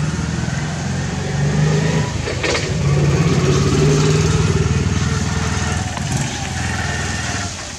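An engine running steadily, its pitch shifting a little, with a brief sharp knock about two and a half seconds in.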